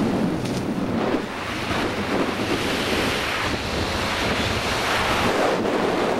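Wind rushing over a helmet camera's microphone during a parachute descent: a loud, steady rushing noise.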